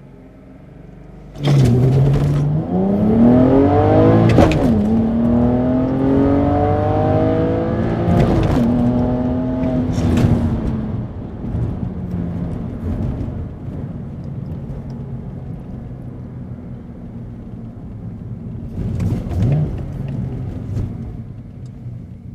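BMW 330i's N52 straight-six with a BMW Performance rear silencer, heard from inside the cabin, accelerating hard from low revs about a second in: it rises in pitch through the gears with two upshifts, each a brief drop in pitch, then settles into a steadier, quieter cruise with a short rev blip near the end.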